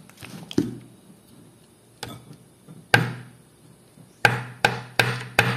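A spoon knocking against a plastic blender jar to shake a tablespoon of butter into it: a few sharp taps a second or so apart, then a quicker run of four taps near the end.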